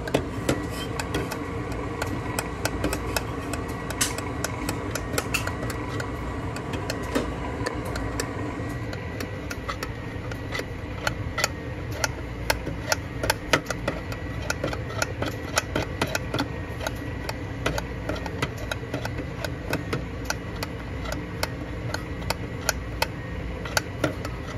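Espresso grinder's electric motor running steadily with a hum, with many irregular sharp clicks and rattles throughout, as the reassembled grinder is tested.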